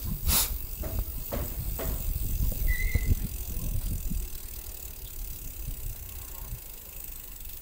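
Bicycle rolling along a concrete path, rattling over a low, uneven rumble, with a brief high squeak about three seconds in.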